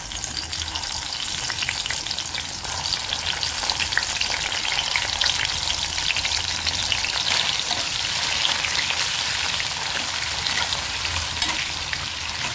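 Masala-stuffed small brinjals frying in hot oil in a stainless steel pan: a steady sizzle with fine crackling.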